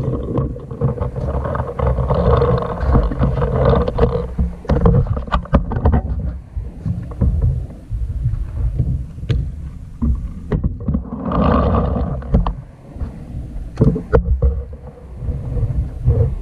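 Wind buffeting the microphone, an uneven low rumble, with scattered sharp knocks and clicks.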